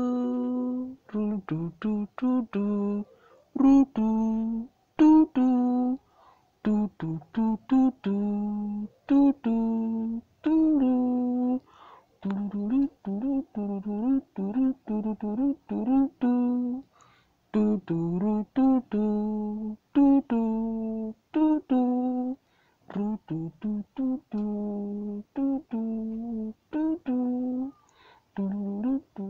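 An unaccompanied voice humming a slow, wordless melody: long held notes with short breaks between phrases.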